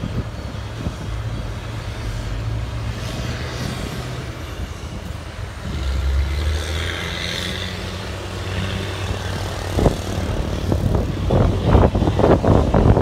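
Diesel dump truck engine running low and steady while the truck moves slowly, swelling briefly about six seconds in. Wind buffets the microphone in the last few seconds.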